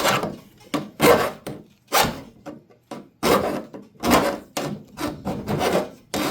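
Hand file rasping on metal in uneven strokes, about one a second, filing down a protruding metal part.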